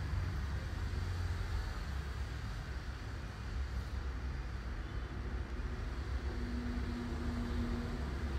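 Shrimp stir-frying in a hot pan while a wooden spatula stirs them: steady sizzling over a low, even rumble.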